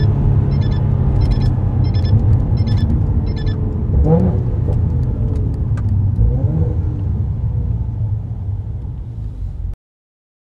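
Mercedes-AMG C43 (W205) twin-turbo V6 heard from inside the cabin through an aftermarket valved exhaust with its valves open: a steady deep rumble while driving, a short rising rev about four seconds in, then easing off and fading before it cuts off near the end. A light tick repeats about every 0.7 s over the first three and a half seconds.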